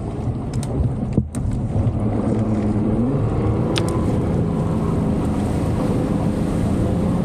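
Outboard motor running under way. Its pitch rises about three seconds in as it is throttled up, then holds steady.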